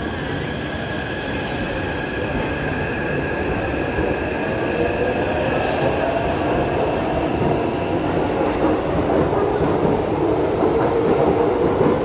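Taipei Metro high-capacity steel-wheel train pulling away from the platform and picking up speed. Its motor whine rises in pitch from about four seconds in, while the running noise of wheels on rails grows gradually louder.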